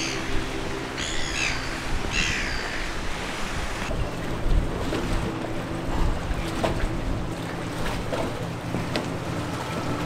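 A few short, falling bird chirps over a low background hum. About four seconds in, the sound switches to a moored ferry's engine idling with a steady low hum, against water and wind noise.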